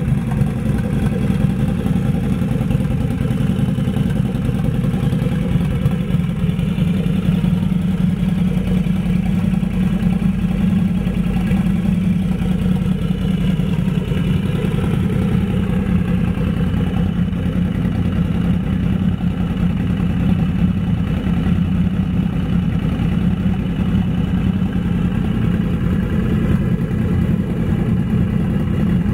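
Turbocharged Harley-Davidson V-Rod's liquid-cooled Revolution V-twin idling steadily at about 1100–1300 rpm on a dyno.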